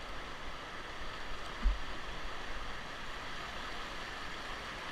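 Whitewater river rushing steadily around a paddled raft, with one brief low thump about a second and a half in.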